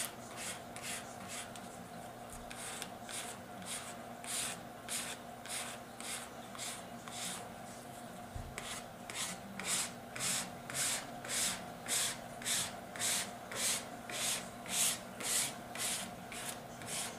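A plastic ID card scraped in repeated strokes over a wet vinyl decal on a tractor hood, squeegeeing the water out from under it. The strokes come unevenly at first, then settle into a steady rhythm of about two a second in the second half.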